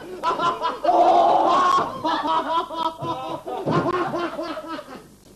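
Men laughing loudly and yelling in bursts, dying away about five seconds in.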